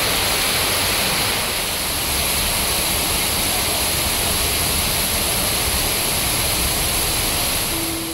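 Heavy rain pouring steadily onto trees and foliage, a dense even hiss, with soft piano music coming in at the very end.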